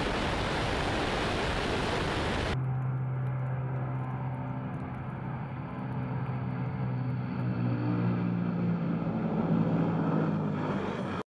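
A loud, even rushing noise from a close on-board position gives way, after a cut, to the steady drone of a Tupolev Tu-95's Kuznetsov NK-12 turboprops with their contra-rotating propellers. The drone holds a few steady low tones and swells louder as the bomber rolls down the runway near the end.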